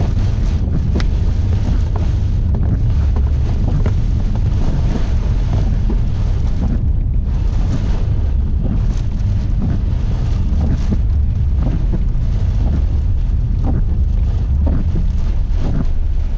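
Steady heavy low rumble of storm wind and road noise from a vehicle driving through a severe thunderstorm, with scattered light ticks of rain.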